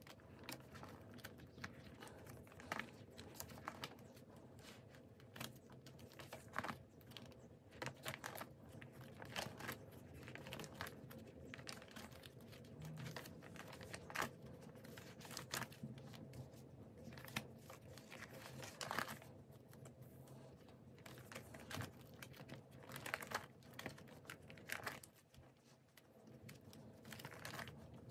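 Plastic sleeve pages of a thick ring binder full of photocards being turned one after another, the plastic crinkling quietly with each page turn.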